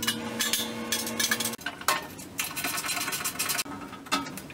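Rikon band saw's sheet-steel stand clattering and rattling as it is lifted and handled in its cardboard box, with a metallic ring under the first clatter and a few separate knocks near the end.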